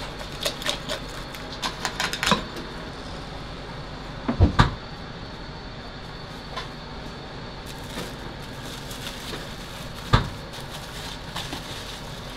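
Fish preparation on a cutting board: light clicks and scrapes of a knife as the scales of a kue (longtooth grouper) are shaved off, then two heavier thumps, about four seconds in and again near ten seconds, as the fish is handled on the board.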